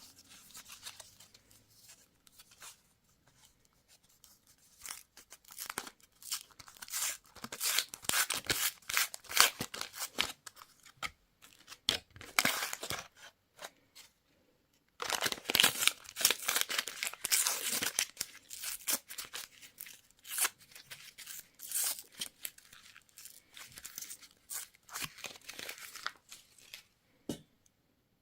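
Crinkling and tearing of plastic candy and toy packaging being opened by hand, in irregular bursts of crackles and snaps with a short pause about halfway through.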